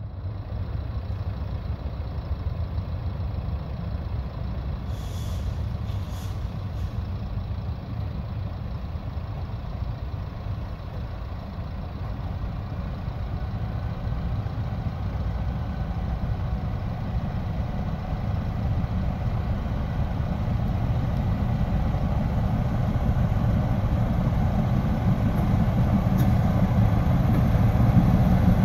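Diesel shunting locomotive's engine running with a steady low rumble, growing gradually louder as it approaches hauling its carriages.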